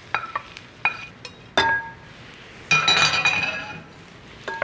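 A metal skillet clinking against the rim of a glass mixing bowl as cooked onion mixture is scraped out of it into the stuffing: a few sharp ringing clinks, then a longer clatter of clinks around the middle.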